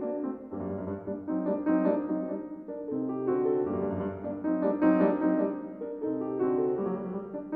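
Background piano music: sustained notes and chords that change every second or so.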